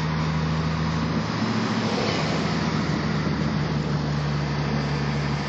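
Cars cruising side by side in traffic: a steady low engine drone with tyre and wind noise, heard from inside a moving car.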